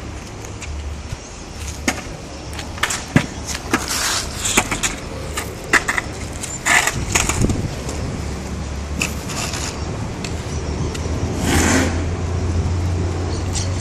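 Longboard rolling on a concrete court: a steady low rumble from the wheels, with scattered clicks and knocks along the way and a short louder rush of noise near the end.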